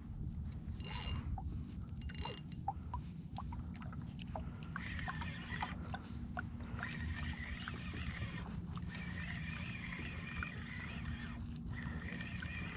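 Spinning fishing reel being wound in against a hooked fish: a thin steady whine with small ticks from about five seconds in. Under it runs a low wash of wind and sea water around the kayak, with scattered light clicks.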